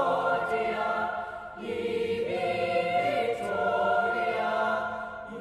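A choir singing sustained chords, with a new chord entering about a second and a half in.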